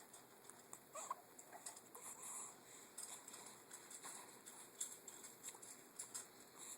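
Near silence with faint rustling and small clicks; about a second in, a brief high squeak from a two-week-old baby.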